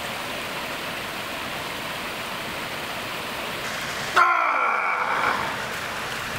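Water from a fountain jet splashing and rushing steadily. About four seconds in, a louder, ringing, pitched sound with a downward sweep beneath it cuts in for about a second.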